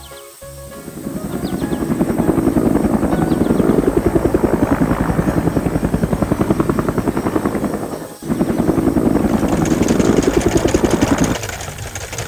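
A loud machine sound with a rapid, steady chopping pulse, fading in over the first two seconds and dropping out for a moment about eight seconds in.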